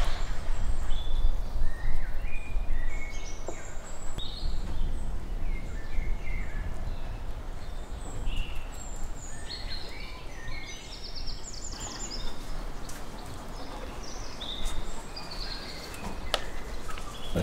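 Outdoor ambience: small birds chirping on and off, in short high calls, over a steady low rumble.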